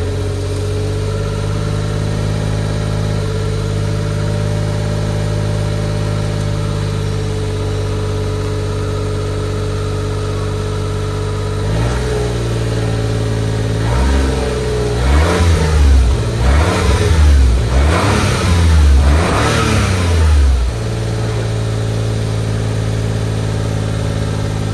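Stock exhaust of a Suzuki Jimny JB23's 660 cc turbocharged three-cylinder engine heard at the tailpipe: idling steadily, then revved in about five quick blips midway through before settling back to idle.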